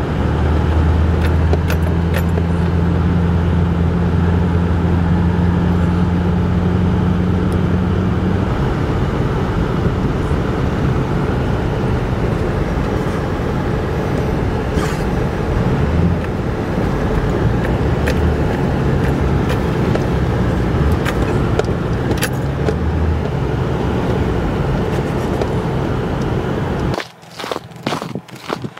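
Motor vehicle driving: steady engine hum and road noise, with a low drone through the first several seconds. The noise cuts off abruptly near the end, leaving a few sharp clicks.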